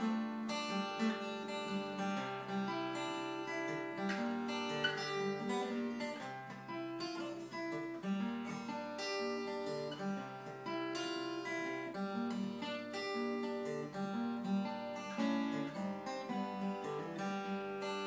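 Solo acoustic guitar playing a folk tune, individually plucked notes ringing over one another in a steady flow.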